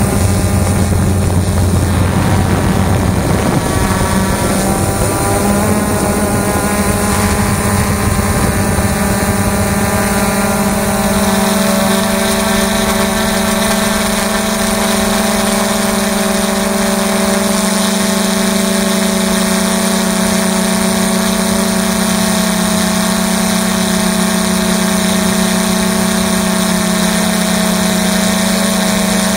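XK Detect X380 quadcopter's motors and propellers buzzing in flight, picked up by the camera mounted on it. The pitch wavers for the first ten seconds or so, then holds steady.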